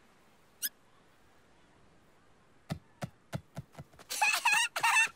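Cartoon nibbling sound effect: a run of quick, sharp clicks of teeth on a small morsel, speeding up. It follows a single short high chirp and gives way near the end to a brief wavering vocal noise from the character.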